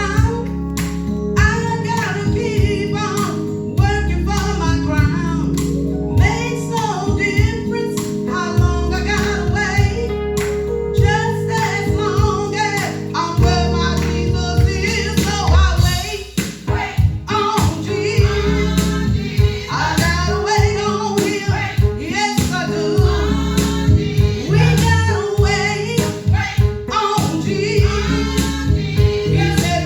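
Worship song in a church service: voices singing over instrumental accompaniment with sustained bass notes, dipping briefly about halfway through.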